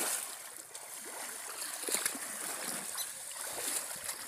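Water splashing and sloshing around a man's legs as he wades in a shallow pond hauling in a fishing line, a continuous wash with a few sharper splashes, the clearest about two seconds in.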